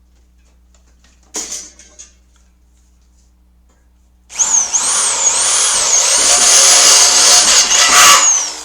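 Power drill with a step drill bit boring out a hole in a metal frame strip. A short burst of noise about a second in, then from about four seconds in a steady spell of drilling, the motor's whine rising and falling over and over, stopping near the end.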